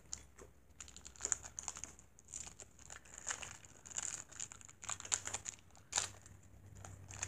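Small toy packaging crinkling as it is handled, a string of short irregular crackles.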